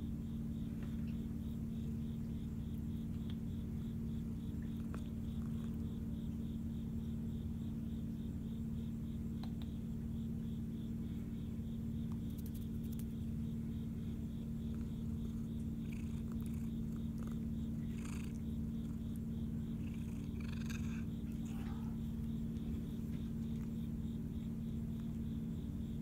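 Siamese cat purring steadily and continuously. A cricket chirps in the background in a fast, even rhythm.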